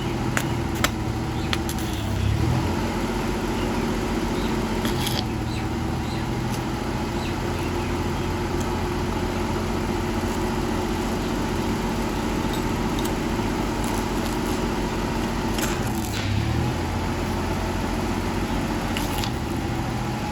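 Toyota Corolla GLI's engine idling steadily, with a few brief metallic clicks and taps near the start, about five seconds in and again about sixteen seconds in.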